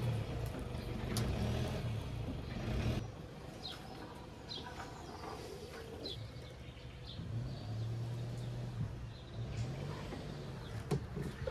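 Toyota Hilux pickup engine running steadily as it slowly tows a trailer; the engine sound drops away about three seconds in and comes back for a while later. Birds chirp in between, and a few sharp clicks sound near the end.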